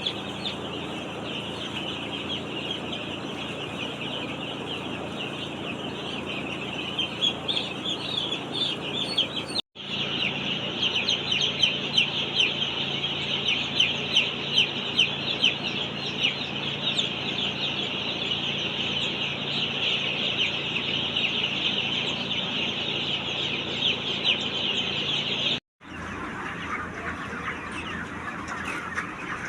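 A large flock of broiler chickens calling all at once: a dense chorus of high peeping and clucking over a low steady hum. The sound breaks off for an instant twice.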